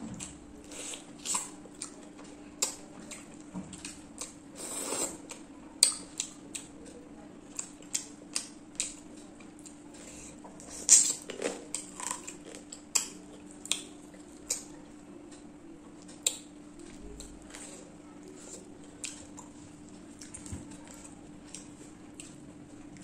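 Irregular clinks and taps on a plate while eating prawn curry with rice, with small eating sounds between them. A few sharper clinks stand out, and a low steady hum runs underneath.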